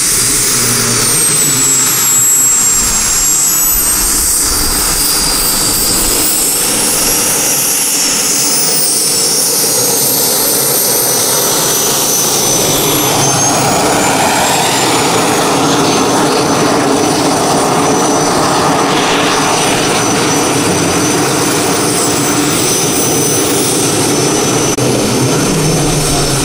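JetCat P-400 turbine engine of a giant-scale RC L-39 Albatros model jet running on the ground: a high whine that slides up and down in pitch over a steady rushing roar.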